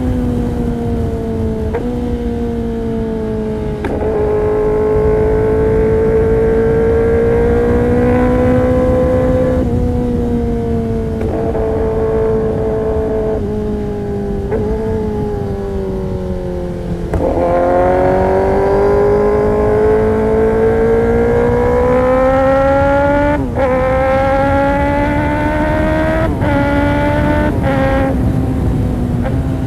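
Kawasaki ZX-10R inline-four running hard through an Arrow Pro-Race competition exhaust, riding along. The note rises and falls with the throttle and jumps in pitch abruptly at several gear changes, over a dense low rumble.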